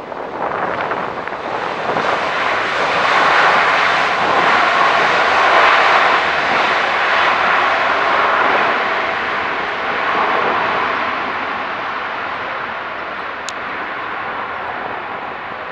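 Jet engines of a Boeing 787-8 on its landing roll-out: a loud, even rushing noise that builds over the first five seconds or so, then slowly fades.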